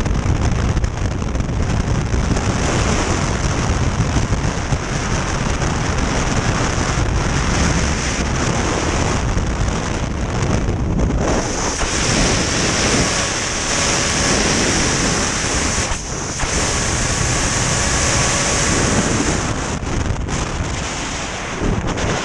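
Loud, steady wind rushing over a helmet camera's microphone during a skydive, from freefall through to flight under the open parachute.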